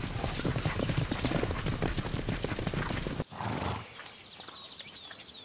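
A herd of wild horses (brumbies) galloping, with a dense rapid drumming of hooves that cuts off suddenly about three seconds in. After that it is quieter, with faint high chirps.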